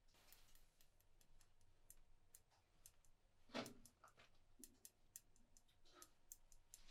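Near silence with faint, irregular light clicks of knitting needles, a couple a second. There is one brief soft rustle about three and a half seconds in.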